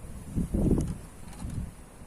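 Wind buffeting the microphone in gusts, a low irregular rumble that swells about half a second in and eases off.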